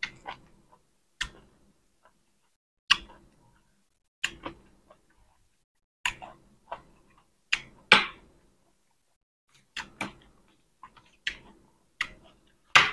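Close-up chewing of crisp fresh vegetables and larb: short, sharp crunches at irregular intervals, about one a second.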